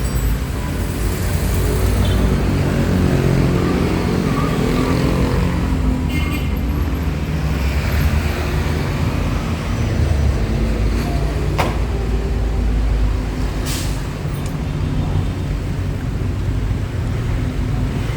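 Makita electric chipping gun (demolition hammer) running on a test after a brush repair, its motor and hammer mechanism going steadily; it runs the way it should. Two short sharp clicks come about two-thirds of the way through.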